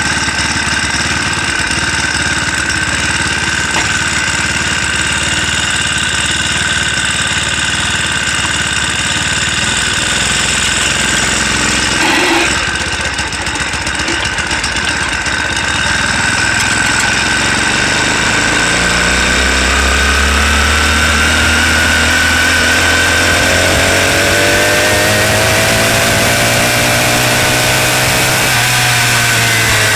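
Small 4-stroke motorized-bicycle engine running, ticking over at first while the bike stands still. From about 18 seconds in it pulls harder, its pitch climbing steadily as the bike picks up speed, and it eases off near the end.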